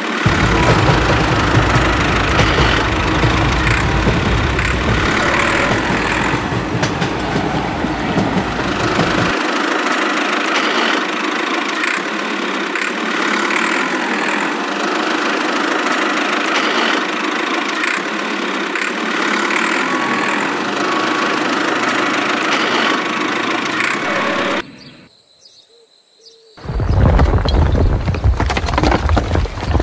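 Motor-vehicle engine sound running steadily, dubbed over miniature toy trucks and changing at each edit, with a short quieter gap about three-quarters of the way through.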